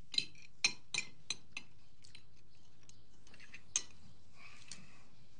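Forks clinking and scraping on plates as people eat: five quick clinks in the first second and a half, then scattered faint ones and one more sharp clink near four seconds in.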